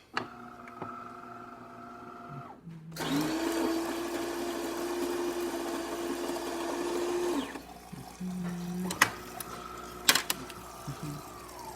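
DeLonghi Magnifica's built-in coffee grinder grinding beans for about four and a half seconds at the start of an espresso cycle. A softer motor whine comes before and after it, and a few sharp clicks sound near the end as the machine moves on to brewing.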